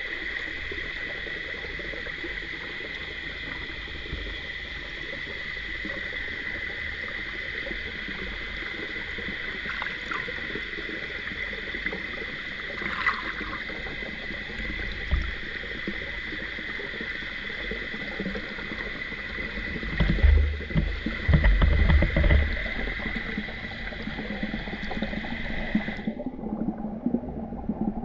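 Mountain stream rushing steadily, with a cluster of low thumps a little over two-thirds of the way in. Near the end the higher part of the rush cuts off suddenly, leaving a low hum.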